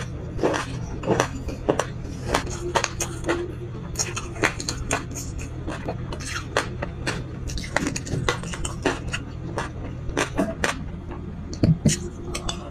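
Close-up chewing of a crunchy sesame-seed mix: many small, irregular crunches and clicks, several a second. Near the end a metal spoon clinks and scrapes in a glass bowl while scooping another mouthful, the loudest sounds.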